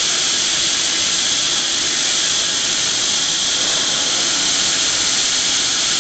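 GRIT GIM mobile belt grinder running, its abrasive belt grinding steel with a steady, loud, high-pitched hiss.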